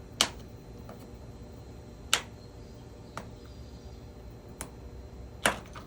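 Sharp plastic clicks, about five spaced a second or two apart, as a small knife pries around the edge of a Ford Transit keyless-entry keypad and its plastic housing clips let go.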